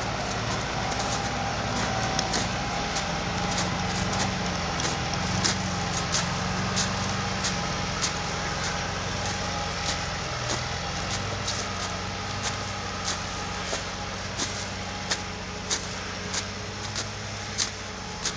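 Vehicle engine running steadily on a snowy track, its pitch wavering slightly. Regular short crisp clicks, about one every two-thirds of a second, sound over it and become more distinct in the second half.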